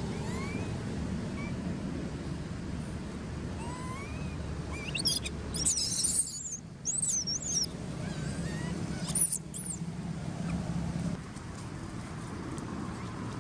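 A baby macaque screaming: high-pitched, wavering squeals in a few short bouts in the middle, over a steady low hum. This is an infant's distress crying, in a baby wanting to nurse that its mother will not feed.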